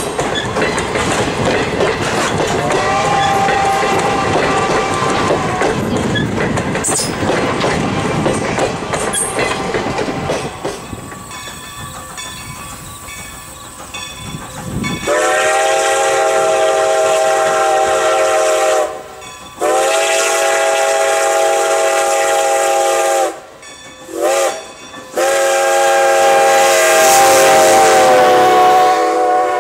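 Passenger coaches rolling past close by, wheels clicking over the rail joints, with a brief distant steam whistle a few seconds in. Then Baldwin 2-10-0 steam locomotive No. 90's whistle blows four loud blasts, long, long, short, long: the grade-crossing signal.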